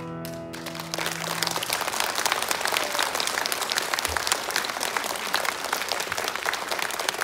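The final chord of guzheng and piano rings away, and about a second in an audience breaks into steady applause.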